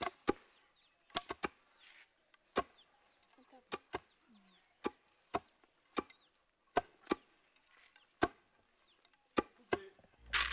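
A series of sharp chopping knocks, about one to three a second at an uneven pace.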